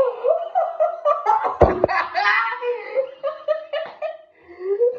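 A person laughing hard in repeated high-pitched bursts, with a loud thud about a second and a half in.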